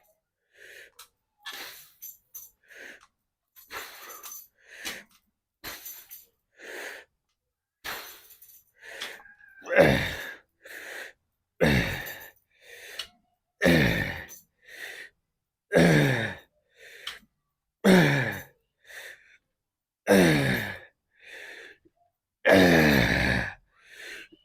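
A man breathing hard and grunting with effort through a set of weightlifting reps. Quick sharp breaths come first, then about seven loud grunts, roughly two seconds apart, each falling in pitch.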